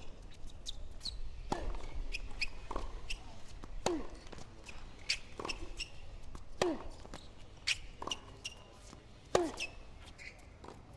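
Tennis rally on a hard court: racket strikes and ball bounces, a sharp pock roughly every second or so, the loudest about nine seconds in.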